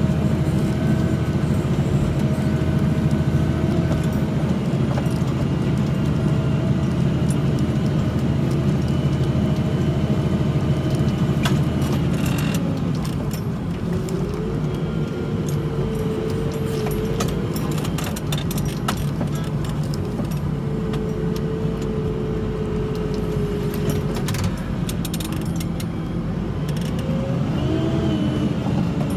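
Tractor engine running steadily under load, with scattered rattles and clicks. The engine note drops about halfway through and rises again near the end.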